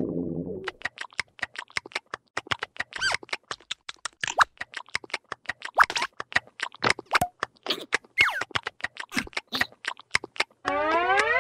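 Animated larva characters making a quick run of short squeaky mouth sounds and clicks, several a second, some with a brief chirp of pitch. It ends in one falling squeal.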